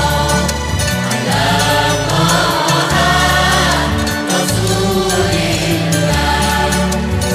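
Music: a group of voices singing an Islamic devotional song (sholawat) over deep held bass notes that change about every second.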